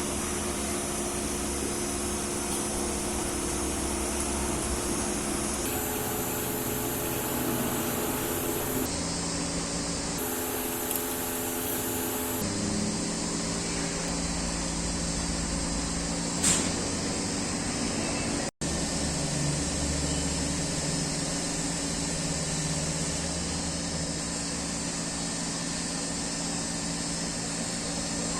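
Steady hiss and hum of a machine running, in several back-to-back segments that change abruptly, with a single short click about two-thirds of the way through.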